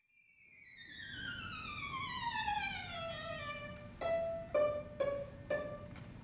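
Solo violin fading in, sliding smoothly downward in pitch from high up over about three seconds, then playing four short detached notes about half a second apart.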